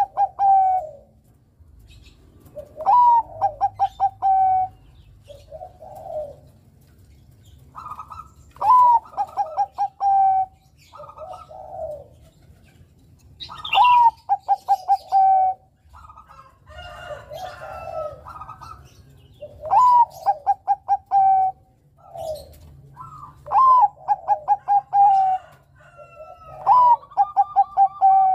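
Bangkok-type zebra dove (perkutut) singing: each phrase opens with a rising note and breaks into a quick run of short coos, repeated about six times, every four to six seconds, with softer coos in between.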